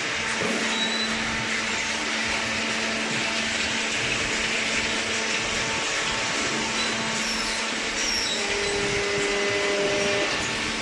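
Hydraulic baling machine running: a steady whirring machine noise over a low constant hum.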